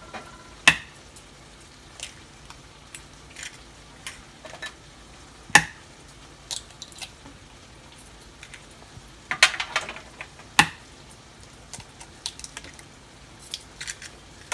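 Eggs being cracked on the rim of a glass bowl: a sharp tap every few seconds, with a quick cluster of taps and shell crackle about two-thirds of the way through.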